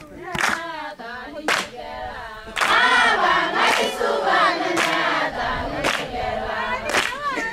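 A group of women singing together, with sharp hand claps about once a second; the singing grows louder about two and a half seconds in as more voices join.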